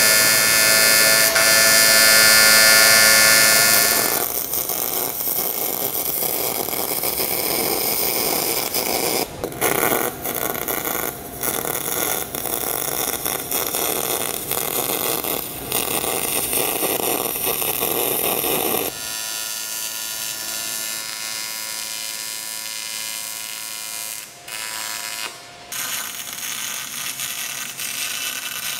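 An AC TIG arc buzzing loudly on aluminum for the first few seconds. Then a spool-gun MIG arc on aluminum pipe crackles, running under pure argon, and turns quieter and steadier about two-thirds of the way through.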